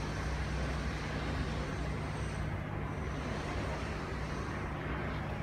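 Steady airport apron noise: a constant low hum and rushing noise of ground machinery, with a faint high whine that fades in and out.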